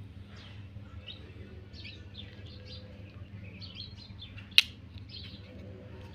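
Birds chirping in many short, quick chirps, with one sharp click about four and a half seconds in.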